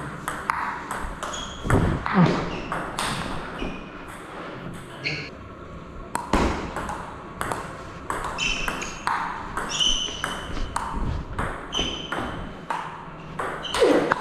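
Table tennis rally: the plastic ball clicking sharply off the rubber-faced bats and the tabletop in a quick back-and-forth, many hits in a row.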